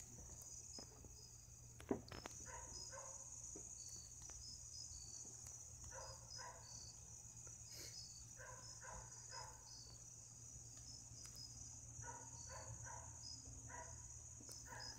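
Night insect chorus of crickets, a steady high-pitched chirring with short repeated chirps over it, faint. A single click about two seconds in.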